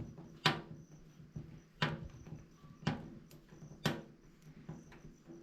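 Four sharp knocks, about a second apart, from hand work on the solar-panel mounting.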